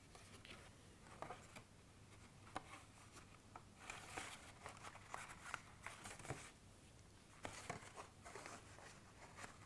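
Faint, scattered rustles and soft taps of cardstock handled by hand as a paper treat bag is pressed into shape.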